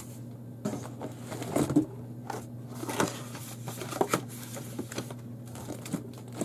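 Hands rummaging in a cardboard shipping box of art supplies: rustling packaging with scattered light knocks and clicks as items are handled, over a steady low hum.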